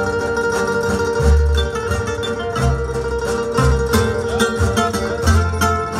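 Rondalla instrumental passage: acoustic guitars and requintos play chords under one long held melody note, with a double bass plucking deep notes about once a second.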